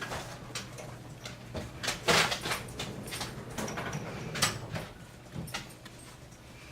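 Handling noises at a workbench: scattered light clicks, knocks and scrapes of small objects being picked up and set down, louder about two seconds in and again about four and a half seconds in, over a faint steady low hum.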